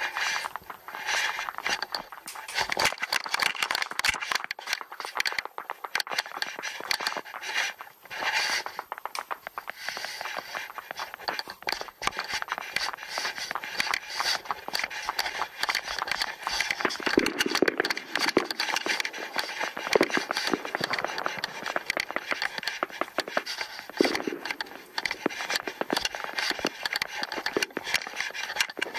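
Dense, irregular clicking and scraping close to the microphone, with a few louder knocks midway.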